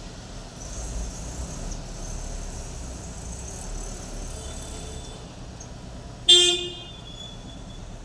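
Steady background hum of street traffic, with one short vehicle horn toot about six seconds in, the loudest sound.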